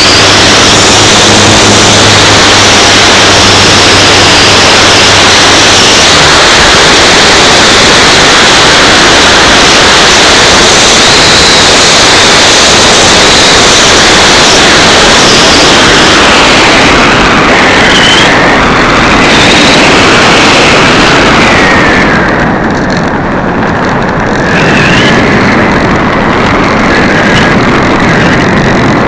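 Electric RC glider in flight, heard from its onboard camera: loud wind rush over the microphone together with the whine of the electric motor and spinning propeller, wavering up and down in pitch. About three quarters of the way through, the high hiss drops off and thinner whistling tones remain.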